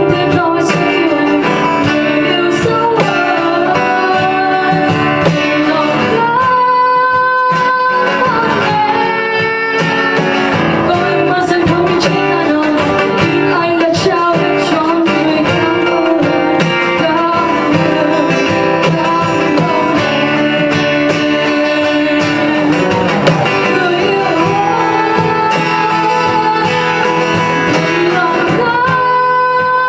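A woman singing an R&B-style song live into a microphone, accompanied by a strummed and picked acoustic guitar.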